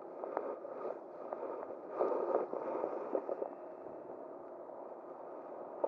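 River water running steadily, with a louder stretch about two seconds in and scattered light clicks.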